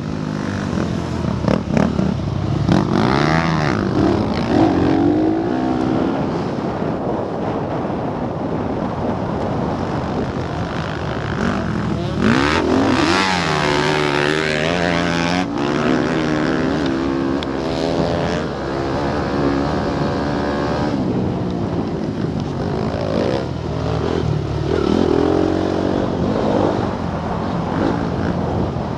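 Motocross bike engine heard onboard, revving up and falling back again and again as it is ridden round a dirt track. About halfway through, a second motocross bike runs close alongside and its engine joins in louder for a few seconds.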